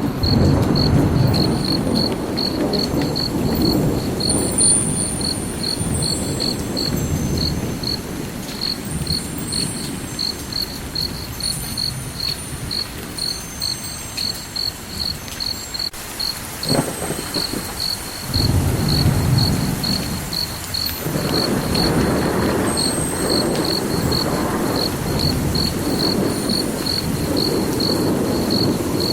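Cricket chirping in a steady, even rhythm of about three chirps a second, over a low rumbling noise that swells and fades, with faint short high tones scattered above.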